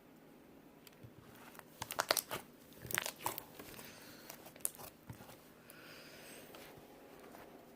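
Slime being played with by hand, giving clusters of crackling, popping clicks, the loudest about two and three seconds in, then a softer rustle.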